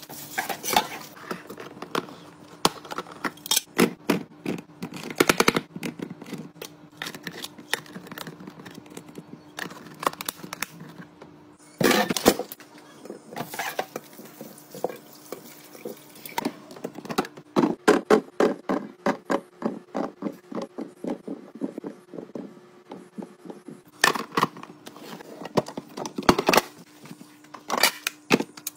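Clicks, knocks and scrapes of plastic and glass containers, jars and lids being handled and set down while a fridge is restocked, over a steady low hum.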